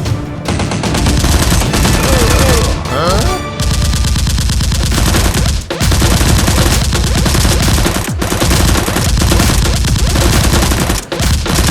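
Rapid, sustained automatic gunfire sound effects, bursts of shots with short breaks about six, eight and eleven seconds in, with a few brief whistling glides about two to three seconds in.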